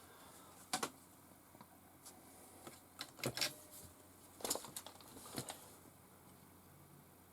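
Light, sharp plastic clicks and taps from handling a radio-controlled crawler's electronics: a quick pair about a second in, then a run of clicks between three and five and a half seconds in.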